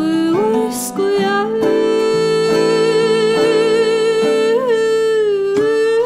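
Live acoustic folk band of guitar, mandolin, violin and double bass playing. A long held melody line with vibrato, sliding up briefly near the middle, runs over plucked strings and bass notes.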